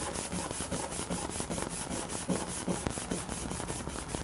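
Coarse abrasive cloth scrubbed back and forth by hand over a plastic lawn-tractor fuel tank in rapid, even strokes. It is roughening the surface around the leaking seam so that solder and JB Weld will bond.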